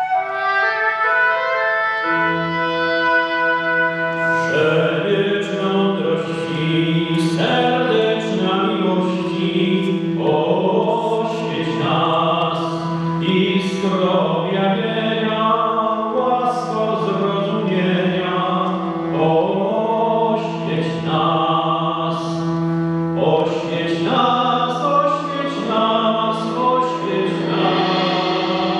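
Choral music: voices singing over a steady low held note, after a single melodic line of long held notes opens it.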